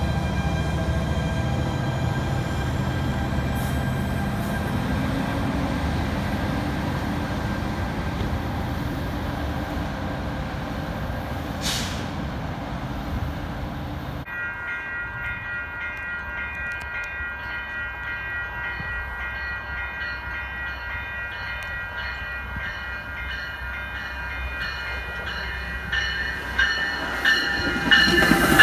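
exo commuter train at a station. First the locomotive runs with a steady low rumble as the train moves off. After that, steady high tones with scattered clicks come from a bilevel train on the tracks, growing louder with wheel noise near the end as it comes close.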